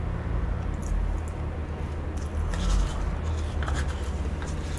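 Close-miked chewing of soft chocolate cake, with small wet mouth clicks and a metal spoon scraping in a paper cup, over a steady low hum.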